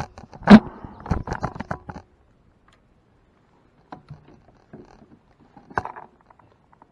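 Knocks and scrapes of gear being handled in a plastic fishing kayak. A sharp thump comes about half a second in, then a clatter of smaller knocks for a second or so, and a couple of faint knocks later.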